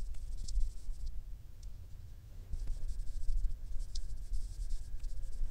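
Soft, faint brushing and scratching of a toner-soaked cotton pad being wiped across skin, over a low rumble.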